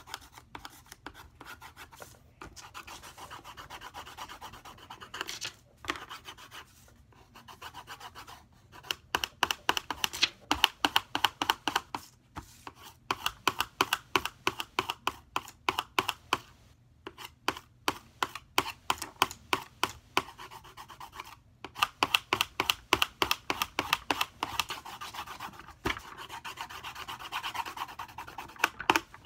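Colored pencil scratching back and forth on paper in quick strokes, several a second, coming in runs of a few seconds with short pauses, louder from about a third of the way in.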